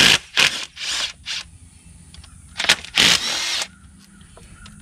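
Ridgid SubCompact cordless driver spinning out bolts from an electric-car drive unit's aluminium case, in several short trigger bursts in the first second and a half and a longer run about three seconds in.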